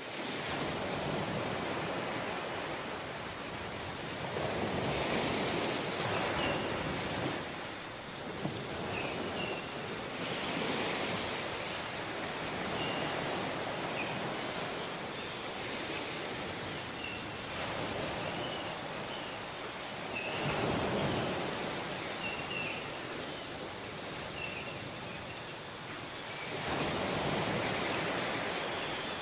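Ocean surf washing onto a tropical beach, a wave breaking and swelling up about every five seconds. Short high chirps recur every second or two over the surf, with a faint steady high tone behind.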